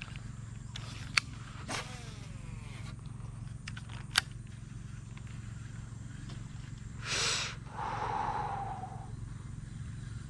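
Fishing rod and reel in use: two sharp clicks of the tackle, then about seven seconds in a swish of the rod on the cast followed by the reel's spool whirring and fading over about a second.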